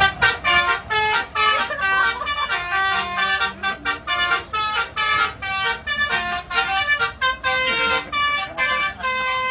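Telolet-style multi-tone horn melody: a quick, unbroken run of short toots at shifting pitches, two or three a second.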